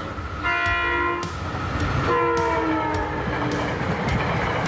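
SEPTA electric commuter train sounding its horn twice as it approaches and passes: a short steady blast, then a longer one that drops in pitch as the train goes by. After the horn comes the rumble of the passing cars on the rails.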